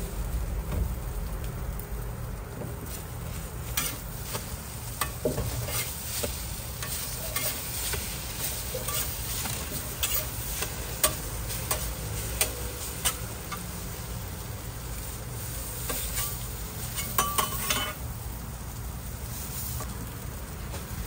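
Food sizzling on a street-stall toast griddle, with sharp clicks and scrapes of cooking utensils against the hot plate every few seconds.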